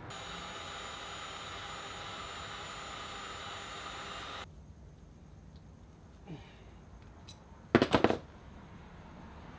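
Handheld electric heat gun running with a steady fan hum, heating the end of a new ground cable; it cuts off suddenly about four and a half seconds in. Near the end comes a short, loud burst of handling noise.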